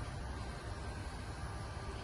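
Steady low hum with a faint, even high whine, typical of the electric hydraulic pump of a 1/12-scale RC hydraulic excavator running.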